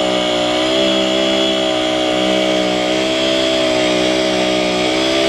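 Diesel engine of a concrete pump truck running steadily under load while pumping concrete: a loud, even drone with a slight waver in pitch.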